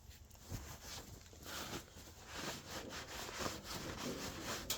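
Scrubbing on a metal lathe's chuck: a run of uneven rubbing strokes, with a sharp click near the end.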